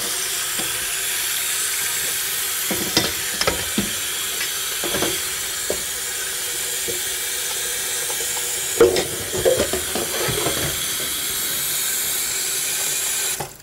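Kitchen faucet running, pouring water into a metal bowl in a stainless steel sink, with a few knocks. The tap is shut off just before the end.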